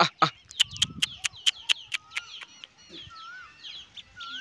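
Outdoor birdsong: a chicken clucking loudly at the start, then a fast series of sharp clicks, about four a second for a couple of seconds. Throughout, small birds chirp and a short wavering whistle repeats about once a second.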